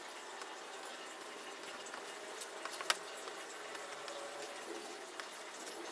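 Kitchen knife slicing soft rice-flour noodle dough on a stainless-steel table: faint scattered taps of the blade against the steel over a low hiss.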